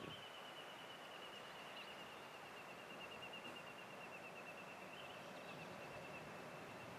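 A songbird's long, high, fast trill, falling slightly in pitch and stopping about six seconds in, faint over a soft outdoor hiss.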